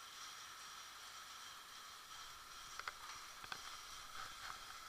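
Faint steady underwater hiss, with a few sharp clicks and knocks near the middle as the diver handles the pump's metal fittings.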